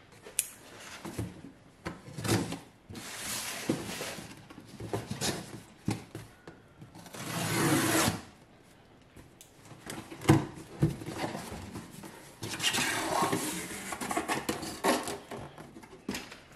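Cardboard shipping box being opened by hand: irregular scraping, rustling and tearing of cardboard and tape, with a few knocks. A longer tearing swell comes about halfway through.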